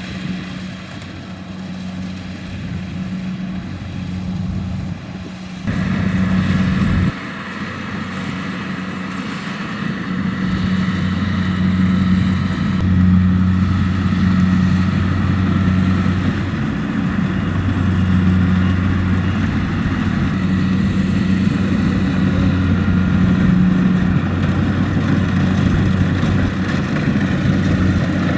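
Kubota DC-70X rice combine harvester running at work, a steady engine drone with machinery noise over it. It jumps louder for about a second around six seconds in and runs louder and fuller from about ten seconds on.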